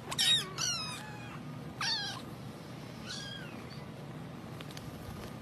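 A cat meowing: a few short, high-pitched meows in the first three seconds or so.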